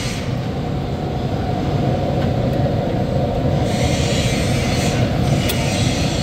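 Steady, loud mechanical rumble with a low hum and hiss: the background machinery noise of a loud workshop. A faint click sounds about five and a half seconds in.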